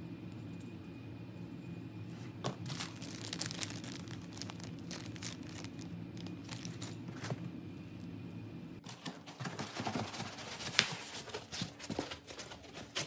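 Clear plastic zip-lock bag crinkling and rustling as it is handled, over a steady low hum. About two-thirds of the way through the hum stops and louder rustling with a few sharp knocks follows as foam packing is lifted out of the cardboard box.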